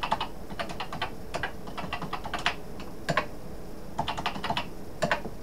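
Keys clacking on a Commodore PET's keyboard: irregular clicks in short runs with brief pauses, the longest pause a little after the middle.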